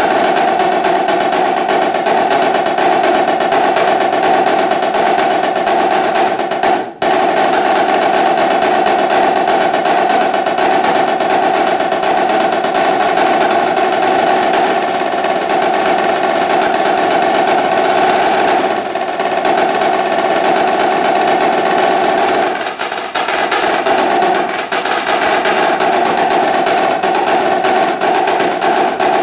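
Yamaha marching snare drum played solo with sticks: a dense, continuous stream of fast strokes and rolls with a ringing tone, broken by one very short rest about seven seconds in and easing into lighter passages in the second half.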